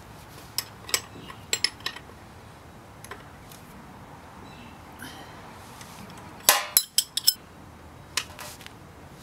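Metal clicks and clinks of a combination wrench working a motorcycle's oil drain bolt, scattered through, with a quick cluster of sharp clinks about six and a half seconds in.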